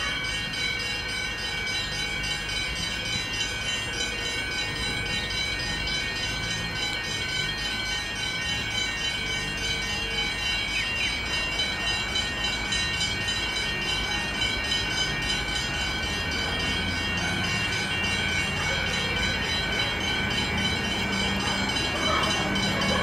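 Comeng electric multiple-unit train approaching slowly along the platform, running with several steady high-pitched whining tones over a low rumble. The sound grows a little louder, with a deeper hum coming in, near the end as the cab comes close.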